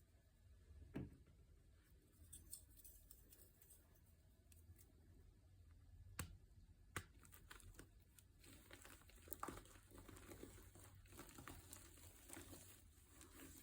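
Faint crinkling and crumpling with scattered sharp clicks, growing busier in the second half.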